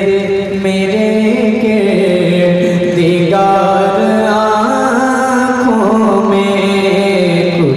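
A man's voice singing a naat, an Urdu devotional poem, with long held notes that glide slowly up and down, amplified through a microphone.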